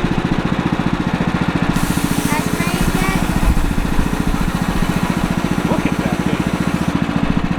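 Portable band sawmill's small gasoline engine running steadily under load. From about two seconds in to near the end, a hiss of the band blade cutting through the log is added, then stops sharply.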